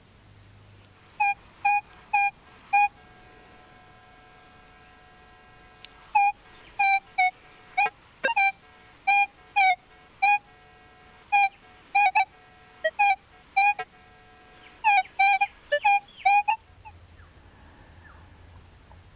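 Minelab CTX 3030 metal detector sounding a run of short beeps, some bending in pitch, as the coil sweeps back and forth over a buried metal target. There are a few beeps at first, then after a pause a long run of rapid beeps that stops near the end.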